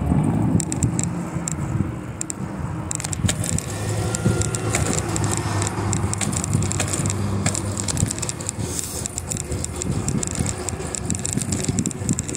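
A bicycle being ridden: loose parts rattle and click over the pavement, and wind rumbles on the microphone.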